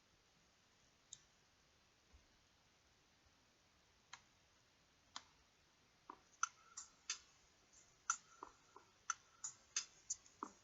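Sharp, separate clicks or taps. They are sparse at first, then from about six seconds in come roughly three a second.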